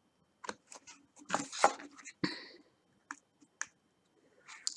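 Irregular small clicks and taps of diamond-painting work: a drill pen and tweezers tapping rhinestones onto the canvas and picking them out of a plastic tray, with a short busier clatter about one and a half seconds in.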